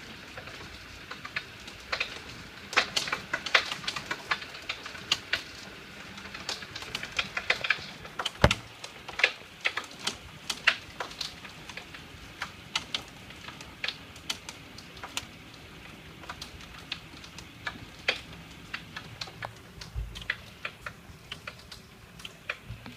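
Hailstones clicking and ticking irregularly, several a second, as they strike hard surfaces close by, over the steady hiss of a heavy downpour. There are a couple of duller knocks, one about a third of the way in and one near the end.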